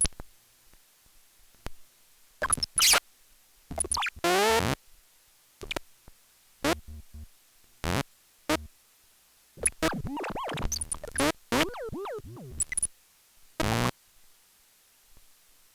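Electronic synthesizer sounds switched on and off by a CV-controlled switch/mute module on a monome aleph. It plays as short, irregular bursts that start and cut off abruptly, some with sliding pitches, and it falls quiet near the end.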